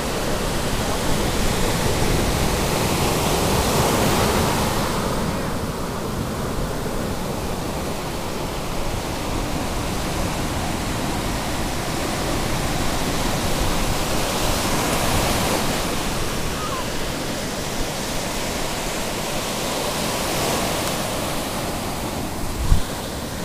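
Ocean surf breaking on a sandy beach: a steady rushing wash that swells louder every several seconds as waves break and run up the shore. A brief thump near the end.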